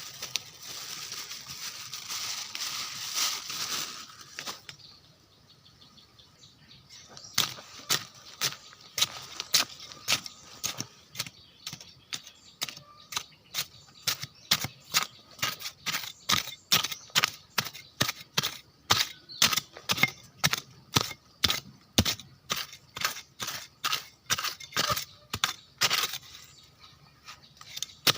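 A rush of noise for the first few seconds, then, after a short lull, a steady run of sharp knocks at about two a second.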